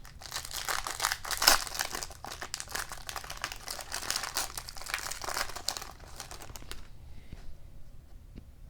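Foil trading-card pack wrapper crinkling as it is handled and torn, loudest about a second and a half in and dying away after about six seconds to a few faint clicks.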